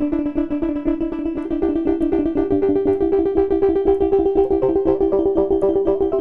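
Software modular synth patch of three wavetable oscillators playing an ambient, plucky chord pattern: fast repeated plucked notes over held tones. The main pitch steps up about two seconds in.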